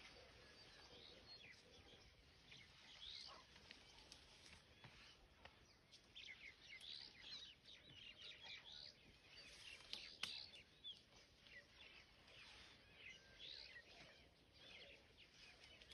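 Faint birdsong: many small birds giving short high chirps and quick up-and-down whistles over a soft background hiss, busiest in the middle stretch.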